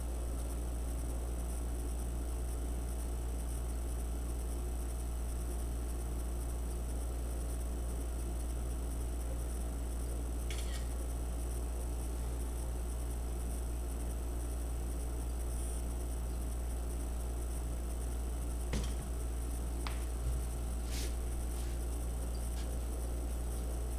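Steady low hum with constant background hiss, and a few faint clicks and taps in the second half.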